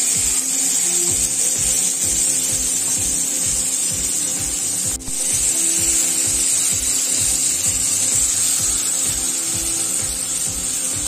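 Marinated tandoori chicken pieces sizzling steadily on a hot, oil-greased grilling pan, heard as a constant high hiss, with background music and its steady beat running along under it.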